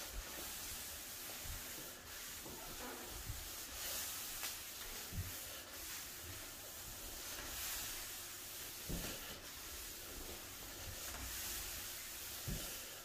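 T-bar applicator pad rubbing across a hardwood floor as it spreads polyurethane: a faint swishing that comes and goes with each stroke, with a few soft low thumps.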